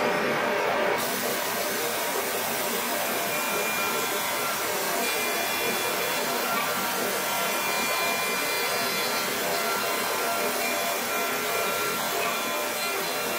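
Komo VR510 CNC router's spindle running a roman-ogee cutter along the edges of wooden parts on a final profiling pass: a steady high whine over a continuous rushing cutting noise.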